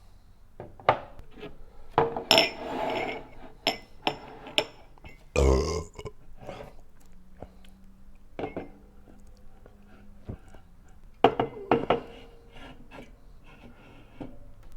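Scattered clicks and knocks of cups and bottles being handled on a table, with a short burp about halfway through.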